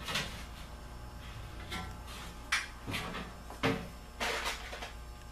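A self-tapping screw being driven with a drill through the sheet-metal filter rack into the furnace cabinet: about six short bursts and knocks as the screw struggles to bite through two layers of metal.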